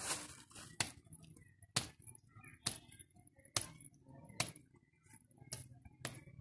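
Hands slapping and patting a lump of wet clay into shape, about seven sharp slaps at roughly one a second.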